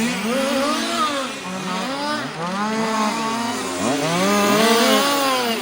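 Several 1:5-scale RC cars' small two-stroke petrol engines revving and dropping off as they drive around the track, their rising and falling pitches overlapping, with the loudest run near the end.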